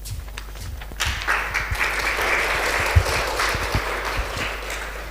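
Audience applauding, starting about a second in and dying away near the end, with a few low thumps.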